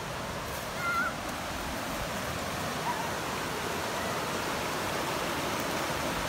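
Whitewater rapids rushing steadily over rocks, a continuous even roar of water.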